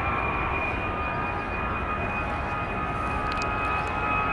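Airbus A319 jet engines running at taxi power: a steady high whine in two tones over a low rumble.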